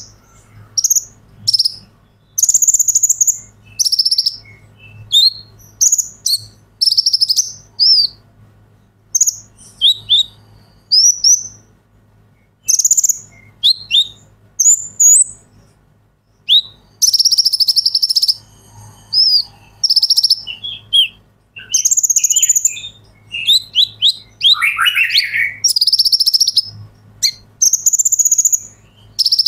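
Male van Hasselt's (purple-throated) sunbird, the 'kolibri ninja', singing hard: high, rapid chirps and sharp notes broken up by loud bursts of fast buzzy trills about a second long, repeated over and over.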